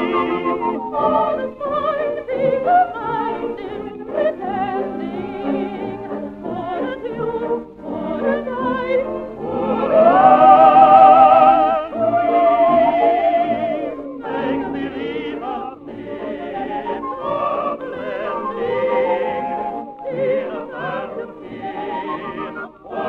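Late-1920s concert dance orchestra playing a medley arrangement, heard from a 78 rpm disc transfer with nothing above the middle treble. A held, wavering melody line swells to the loudest passage about ten seconds in and falls back a couple of seconds later.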